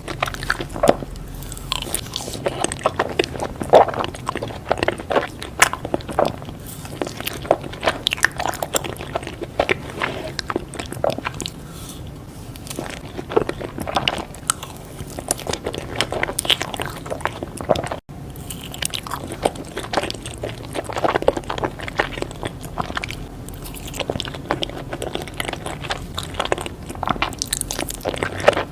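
Biting and chewing crunchy sweets, a steady irregular run of sharp crunches.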